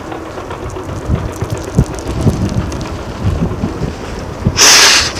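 Distant heavy earthmoving machinery at work: diesel engines running with a low rumble and irregular low knocks and thumps. Near the end comes a short, loud hiss of released air.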